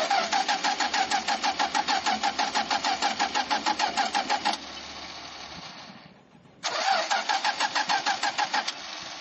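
A car's starter motor cranking the engine in two long tries, with an even pulse of about seven turns a second. The first try lasts about four and a half seconds and the second starts about seven seconds in. The engine does not catch: the overheated engine won't start.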